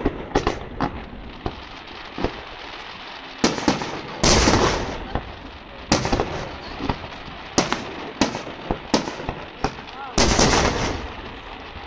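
Fireworks display: aerial shells bursting with sharp bangs every second or so. The loudest come about four seconds in and near the end, and each of these trails off over a second or more.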